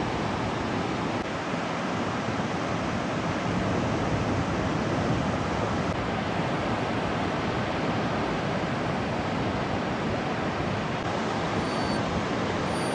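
Ocean surf and wind making a steady, even noise.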